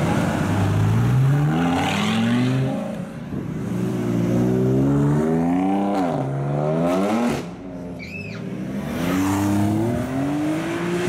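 Sports cars pulling away one after another, first a Lamborghini Gallardo V10, then a BMW M4, then a Porsche 911 convertible. Their engines rev up in repeated rising sweeps, with a short dip in the engine sound about seven seconds in.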